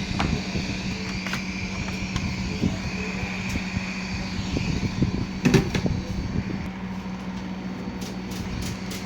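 Hot-air rework station blowing steadily on the circuit board to melt the solder of a VGA port, a steady fan-driven rush with a constant hum, with a few light clicks of tools on the board.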